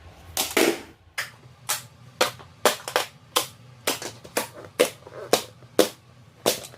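Plastic magnet tiles clacking together: about a dozen sharp clicks, roughly two a second.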